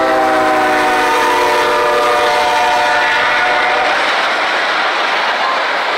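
Air horn of the lead CSX GE ES40DC freight locomotive blowing a multi-note chord as it passes, its pitch dropping as it goes by, ending about four seconds in. Beneath it and after it, the steady noise of freight cars rolling on the rails.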